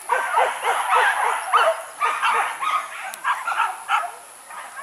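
A pack of boar-hunting dogs barking and yelping. Many overlapping calls crowd the first two seconds, then separate high yelps follow at short intervals.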